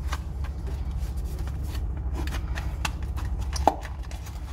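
A small cardboard retail box being opened by hand: a run of light clicks, taps and rustles as the flaps and inner packaging are handled, with one sharper click about three and a half seconds in, over a steady low hum.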